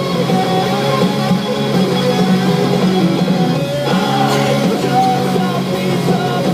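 Rock music track with electric guitar and some singing, loud and steady, with a brief break near the end.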